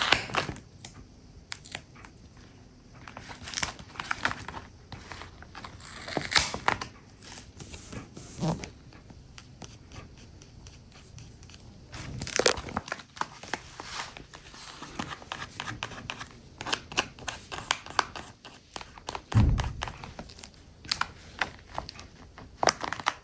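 Paper craft pieces of a handmade quiet book being handled: rustling, crinkling and peeling sounds with many small clicks and taps, and a soft thump about three-quarters of the way through.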